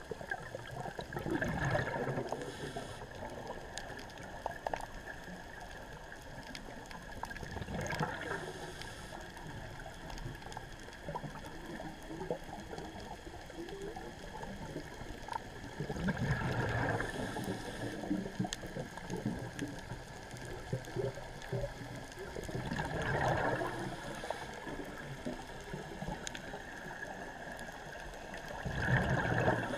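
Scuba diver's exhaled bubbles gurgling out of the regulator in five bursts, one every six or seven seconds with each breath, over a steady underwater hiss with scattered faint clicks.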